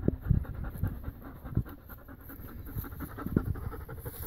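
German Shepherd dog panting close to the microphone in quick, rhythmic breaths, with a few louder low thumps among them.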